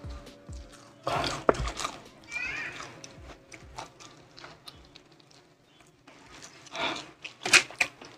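Close-up eating sounds: biting into and chewing sauce-coated spicy fried chicken, with wet, crackly chewing. There are louder bursts of biting about a second in and again near the end.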